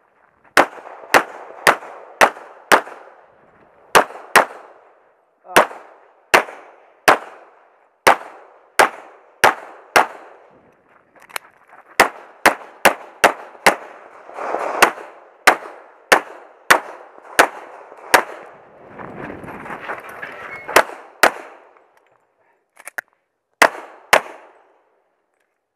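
Glock 35 pistol in .40 S&W fires about thirty shots, mostly in quick pairs about half a second apart, with short pauses between the strings as the shooter moves between targets.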